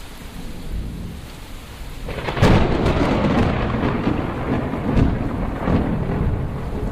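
Storm noise of rain and wind over a wet street; about two and a half seconds in a deep rumble sets in suddenly and carries on, swelling again near the five-second mark.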